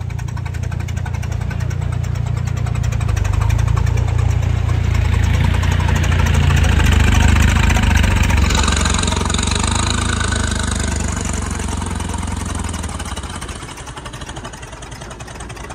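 Tractor diesel engine revved hard, building over several seconds to a peak about halfway through, then easing back down near the end.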